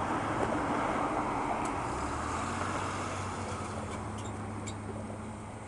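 Road traffic passing: car tyre and engine noise that slowly fades away.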